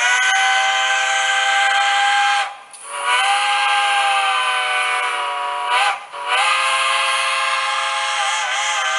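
Steam locomotive whistle from a TCS WOW Sound model-railroad decoder, played through a pair of isobaric 20 mm high-bass speakers: a chime-like chord blown as three long blasts with short breaks between them, with little deep bass.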